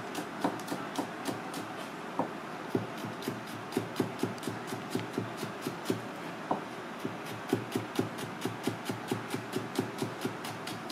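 Chef's knife chopping Japanese long green onion on a plastic cutting board: a steady run of quick knocks of the blade on the board, about three a second.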